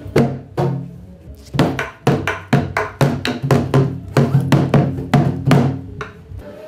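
A buk, the Korean barrel drum that accompanies pansori, beaten with a wooden stick: a run of about fifteen sharp strokes at roughly two a second, unevenly spaced with some quick pairs, each leaving a short low ring.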